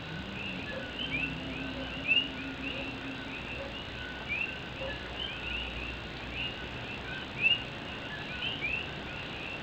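A chorus of Puerto Rican coquí frogs, many overlapping two-note "co-kee" calls, the second note sliding upward, repeating without pause, with a couple of nearer, louder calls. A faint steady hiss of rain lies beneath.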